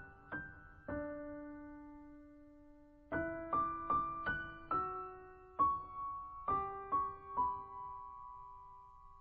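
Solo piano playing a slow, gentle melody of single notes. After a few notes it pauses for about two seconds on a ringing note, resumes, and ends on a long note that fades away.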